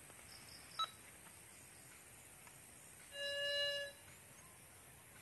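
Metal detector signalling a target: one steady, buzzy beep lasting just under a second, about three seconds in, after a brief sharp chirp about a second in.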